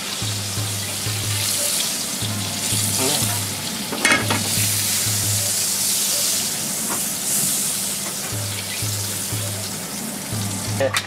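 Oil sizzling in a hot frying pan on a gas burner as it heats for an omelette, a steady hiss throughout, with a brief knock about four seconds in.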